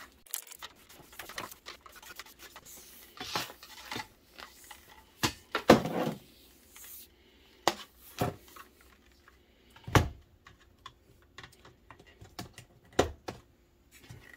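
Extension cord being wound onto a hand-held cord wrap made of two plastic filament spools, sped up: irregular clicks, taps and rubbing of the cord and plastic, with a few louder knocks.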